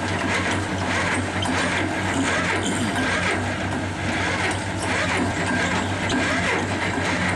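Diesel engines of a crawler auger drill rig and a telehandler running steadily with a constant low hum, as the drilling auger turns and sheds spoil into the telehandler's bucket, with scattered light clatter of falling earth and stones.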